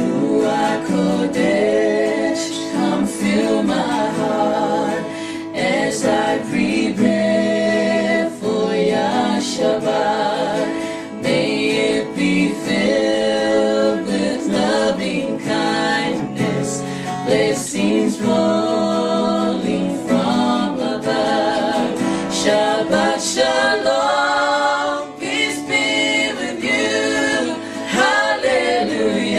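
Music: singing with a choir over accompaniment.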